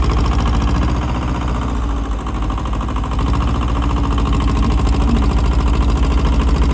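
Tractor engine running steadily with an even, rapid throb as the tractor pushes snow with its plow.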